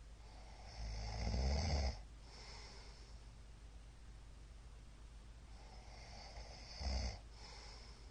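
A middle-aged man snoring in his sleep: two snores about five seconds apart, the first longer and louder, each followed by a softer breathy sound.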